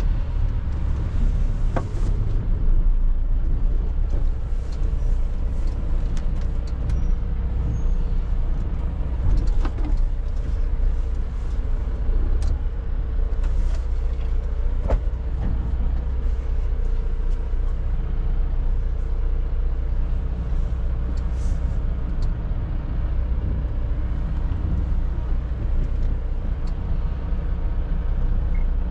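Mercedes-Benz Atego truck's diesel engine running steadily as the truck drives slowly, heard from inside the cab as a low drone with scattered light clicks and rattles.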